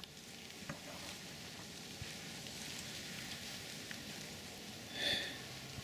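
Camera handling noise as the camera is swung around by hand: faint rustling and light clicks over a steady hiss, with a short high squeak about five seconds in.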